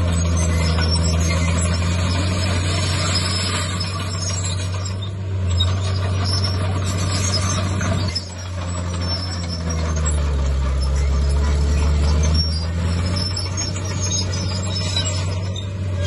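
Komatsu D51PX bulldozer's diesel engine running steadily; about ten seconds in its pitch sags and a deeper rumble swells for a couple of seconds before the engine settles back.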